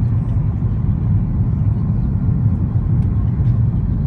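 Steady low rumble inside the cabin of an Airbus A330-300 on approach: engine and airflow noise heard through the fuselage.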